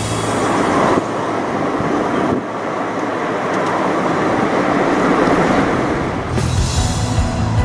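Steady road noise of a car driving along a street. Music comes back in near the end.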